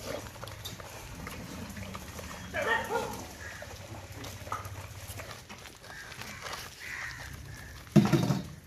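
A dog vocalizing twice in short bursts, once about three seconds in and again, louder and lower, near the end.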